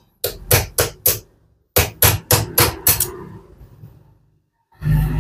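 Hammer tapping at the motor end of a Lexpure RO booster pump to knock the casing loose so the pump can be opened: a run of four quick sharp strikes, a short pause, then five more, at about four a second.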